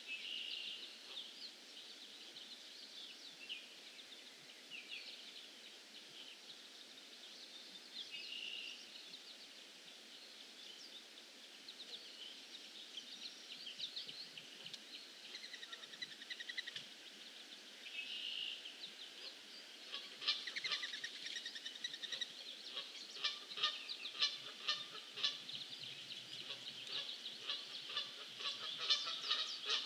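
Pond-side bird chorus: scattered chirps and calls, then a dense run of rapid, repeated calls from about twenty seconds in.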